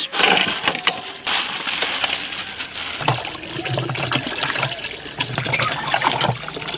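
Water gushing from the spout of a hand-operated well pump.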